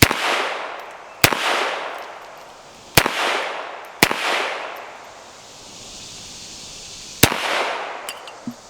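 Five .22 LR pistol shots from a Smith & Wesson Model 422, fired at uneven intervals over about seven seconds. Each shot has a trailing echo that dies away within about a second.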